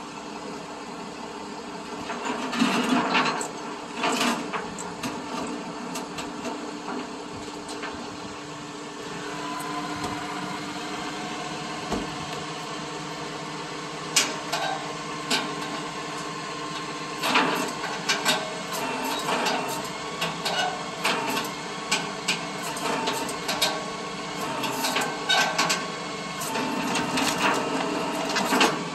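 Tow truck's flatbed winch running with a steady mechanical hum as it pulls the wrecked car by its chain, with irregular clanks and scrapes that come most often in the second half.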